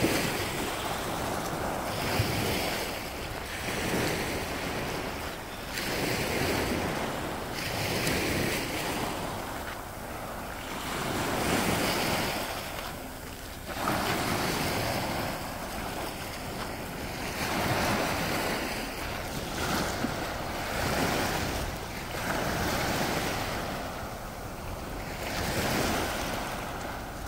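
Small Baltic Sea waves breaking and washing up over a pebbly shoreline, a new wash every two seconds or so.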